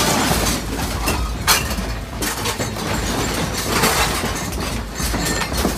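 Household objects rattling and clinking as an earthquake shakes a room, with scattered sharp knocks over a steady low noise.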